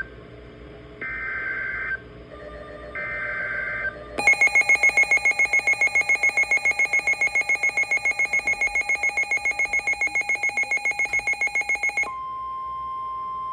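Emergency Alert System SAME header tones on NOAA Weather Radio: two short bursts of screeching digital data tones about a second apart. A loud electronic alarm follows, pulsing about six times a second for some eight seconds. It gives way near the end to the steady 1050 Hz weather radio warning tone that comes before a severe thunderstorm warning is read.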